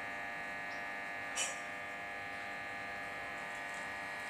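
Desktop PC's cooling fans and power supply running just after power-on, a steady electric whir and hum. A single short click about a second and a half in.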